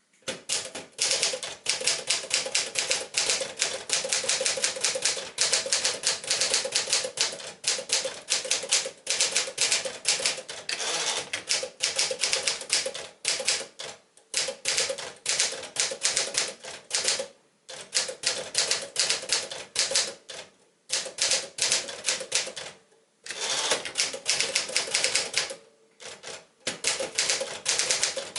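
Sears Tower Commander (a reskinned Smith-Corona Sterling) manual typewriter being typed on in fast, continuous runs of key strikes, broken every few seconds by short pauses.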